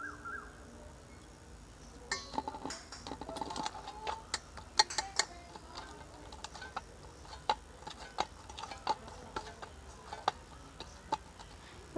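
Oiled dough being kneaded by hand in a stainless steel bowl: irregular light clicks and knocks against the metal, some with a brief ringing, starting about two seconds in.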